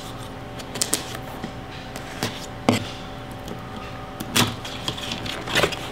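Cardboard keyboard box being handled for opening: a few scattered knocks and scrapes over a faint steady background hum.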